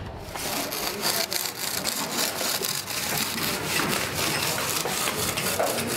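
Rough, continuous scraping of wood over plaster, with many small gritty clicks, starting abruptly just after the start: a wooden profile template dragged along a fresh plaster moulding.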